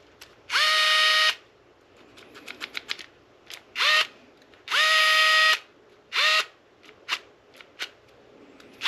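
Cordless drill run in four short trigger pulls, each spinning up quickly to a steady whine, with light clicks and ticks of handling in between.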